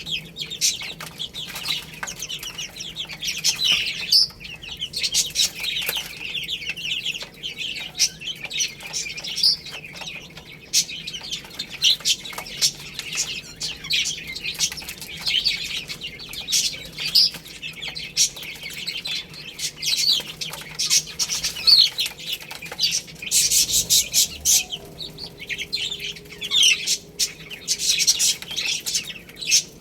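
A brood of baby chicks peeping continuously, many short high-pitched peeps overlapping, with scattered sharp clicks among them.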